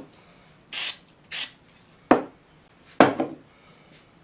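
Two short hisses of aerosol CA glue activator being sprayed, then plywood parts knocked down onto the bench twice, the second time with a quick double knock.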